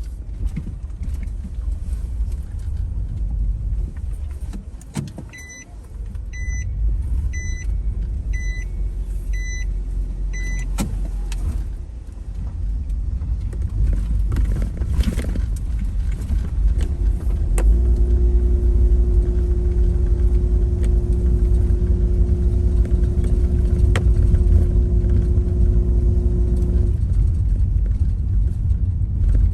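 Car running on the road, a steady low rumble of engine and road noise. A short electronic beep sounds six times about a second apart, and later a steady hum comes in for several seconds, then stops.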